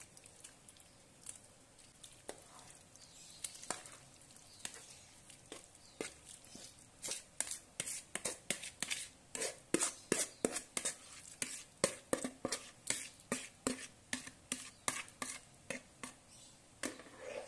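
Metal spoon tapping and scraping against a plastic basin as chopped limus fruit is pushed off into a pot of water, with soft plops and splashes. The clicks are sparse at first and come quick and close together from about six seconds in.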